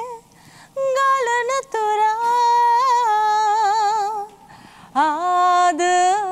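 A woman singing a Sinhala love song unaccompanied, in phrases of long held notes with a wide vibrato, breaking off briefly about three times for breath.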